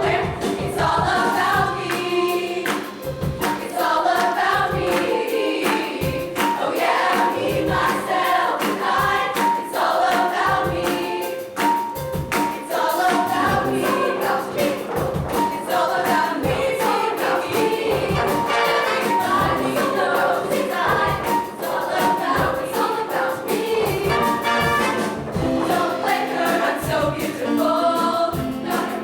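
Show choir singing with a live band behind it, a mass of voices over a steady drum beat.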